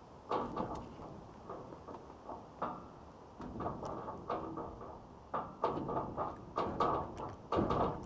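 A camera shutter firing repeatedly: a dozen or so short, sharp clicks at irregular intervals.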